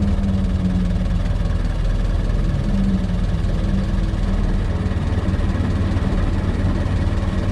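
1926 Ford Model T's four-cylinder flathead engine running steadily at low road speed.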